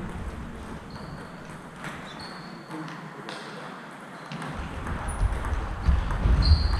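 Table tennis ball clicking in a sports hall: a few sparse sharp clicks, then a rally starts about five seconds in, with the ball struck back and forth over louder low thudding of footwork.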